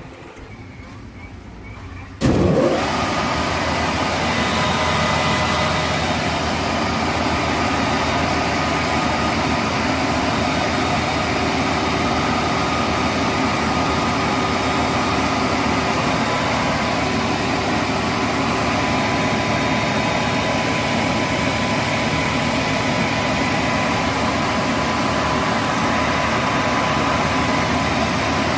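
A repaired heavy-vehicle alternator being spun up for a no-load charging test: the drive starts abruptly about two seconds in, then runs steadily with a constant whine over the machine noise. The alternator is charging properly at about 28.5 volts.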